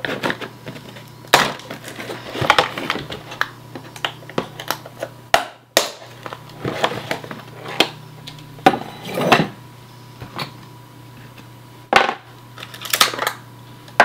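Packaging being handled and unpacked: irregular plastic clicks, taps and short rustles, over a steady low hum.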